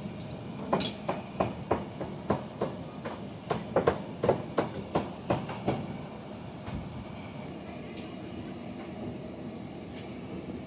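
A run of sharp knocks and clacks, about two or three a second for the first five seconds or so, then only a steady background hum.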